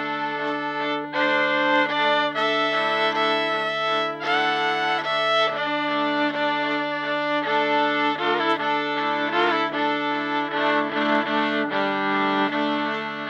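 Viola played live, bowing a line of held and changing notes over a steady low looped drone that never stops.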